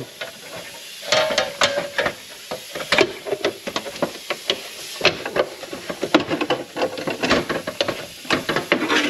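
Sheet-metal gauge panel being pushed and shifted into a truck's dash bezel by hand: irregular clicks, taps and light knocks of the metal against the bezel.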